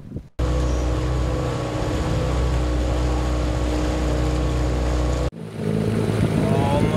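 Small boat's outboard motor running steadily under way, with wind and water noise. The sound breaks off briefly about five seconds in and then picks up again.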